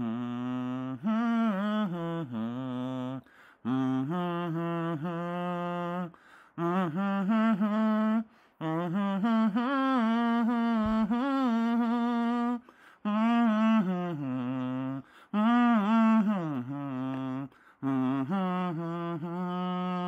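A person humming a wandering tune in short phrases of a second or two, with brief pauses between them and the pitch sliding up and down.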